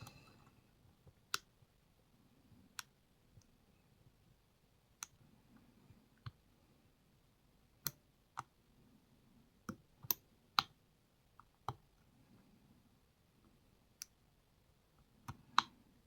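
Lock pick and tension wrench working the pins of a pin-tumbler lock: scattered, irregular small sharp clicks as the pins are lifted and set, with several in quick succession near the end.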